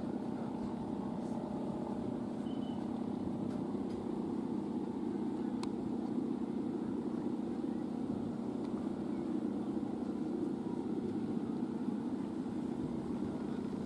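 Steady low drone of Balinese kite hummers (guangan), the taut bows strung across the tops of the flying kites vibrating in the wind.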